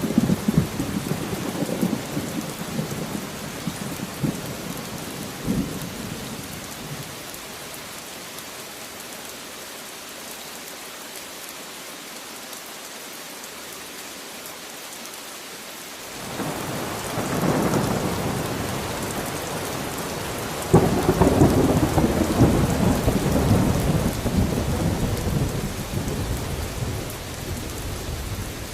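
Steady rain with rolling thunder. A rumble fades out in the first few seconds, leaving only the rain. Another roll builds about halfway through, and a sharper clap about two-thirds in rumbles slowly away.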